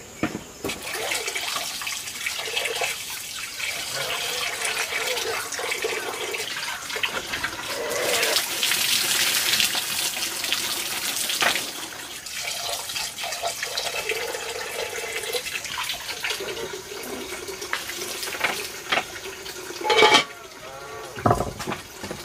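Water running from an open pipe into a clay basin, splashing as a bowl is handled in it. The splashing is louder about eight to eleven seconds in, and a sharp knock comes near the end.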